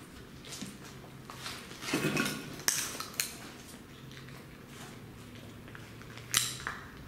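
Footsteps on a floor strewn with rubble: a scuffing crunch about two seconds in, then sharp clinks of hard debris knocking together, twice in the middle and once, loudest, near the end.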